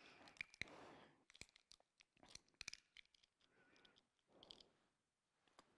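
Faint crinkling clicks and crackles of a prepackaged communion cup's plastic seal being peeled open.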